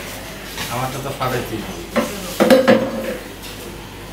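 Sharp knocks and metallic clinks of a coconut being struck to crack it open over a stainless steel bowl. There are about half a dozen short hits, mostly between one and three seconds in.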